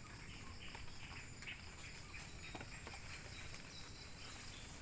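Faint outdoor ambience: a steady high-pitched insect drone, with a few light clicks and rustles scattered through it.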